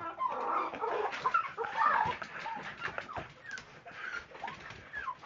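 Small dogs whining and yelping, high-pitched and excited, with short rising and falling cries throughout and some scuffling and clicks.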